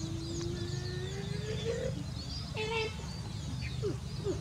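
Many small birds chirping and twittering over a steady low hum. A drawn-out call rises slowly in pitch over the first two seconds, and a short harsh call comes a little past halfway.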